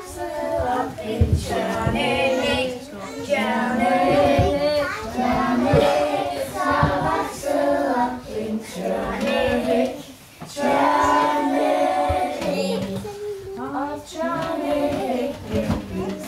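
A group of children singing a song together, with a brief pause about ten seconds in.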